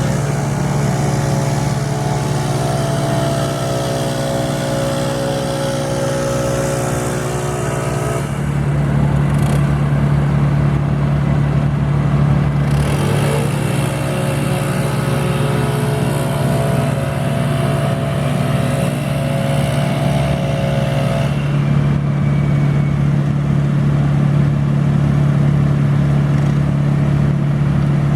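Heavy engine-driven equipment running steadily, with a second, higher-pitched machine sound that rises in twice and holds for several seconds each time.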